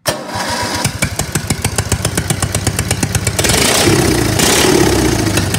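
Small garden-tractor engine running with a fast, uneven popping exhaust beat. It revs up about three and a half seconds in and eases back near the end.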